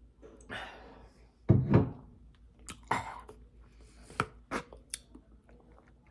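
Close-miked mouth sounds of a person eating a spicy pork bun: chewing with sharp, irregular clicks and smacks, and a louder burst about a second and a half in.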